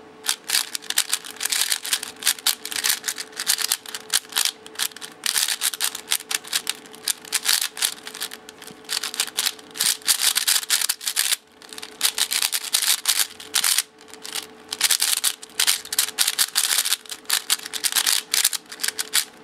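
MoYu Weisu 4x4 speed cube being turned fast by hand: a near-continuous run of rapid plastic clicks and clacks as its layers snap through turns, broken by a couple of brief pauses.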